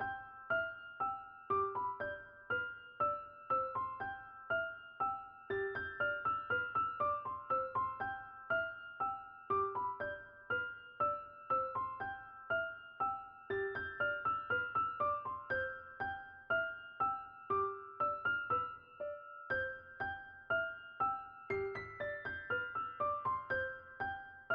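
Background music: a gentle keyboard melody of evenly paced, softly decaying notes.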